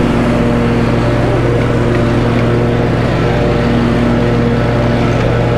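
Snapper Pro walk-behind mower's engine running steadily while mowing grass, a constant drone with no change in speed.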